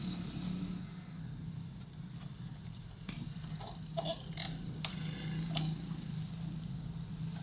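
A steady low hum with a few light clicks and taps scattered through it, beginning about three seconds in.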